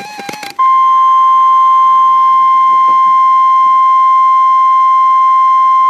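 NOAA Weather Radio's 1050 Hz warning alarm tone: a single loud, unbroken steady beep that starts about half a second in after a brief run of stepped tones. It is the alarm that announces a warning-level alert, here a severe thunderstorm warning.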